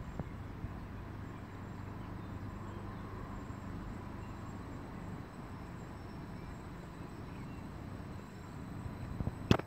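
DB Intercity 2 double-deck electric multiple unit (class 4110) running slowly into the platform with a steady low hum. A sharp knock near the end is the loudest sound, with a couple of lighter clicks at the start.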